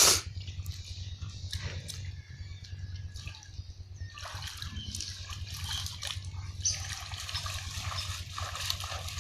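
Shallow water splashing and trickling in irregular bursts, stirred by hands feeling for fish, with a steady low hum underneath.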